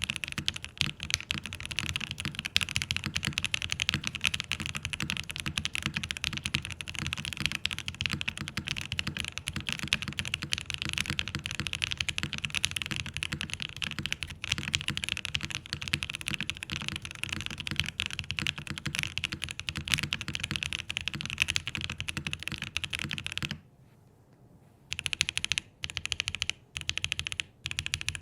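Fast, continuous typing on a QK80 custom mechanical keyboard fitted with Alpaca linear switches. Near the end the typing stops for about a second, then comes back in a few short bursts.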